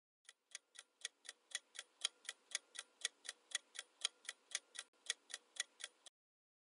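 Countdown-timer sound effect: a quick, even clock tick about four times a second. It starts faint, swells over the first second or so, and cuts off about six seconds in.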